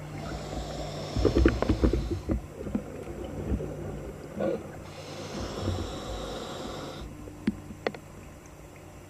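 Diver breathing underwater: two drawn breaths with a high hiss, each about two seconds long, with low rumbling and bubbling around them.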